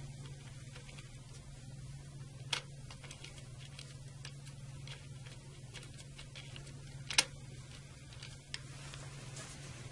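Flat-blade screwdriver driving the captive retaining screw of a spring-release accessory on an Eaton Series NRX circuit breaker: scattered light metal ticks and clicks, with a sharper click about two and a half seconds in and the loudest one about seven seconds in. A steady low hum runs underneath.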